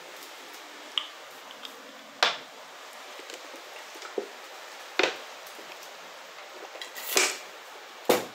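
Scattered sharp clicks and knocks, about six in eight seconds, with a brief rustle about seven seconds in: a phone being handled against its microphone while it is held close to the body.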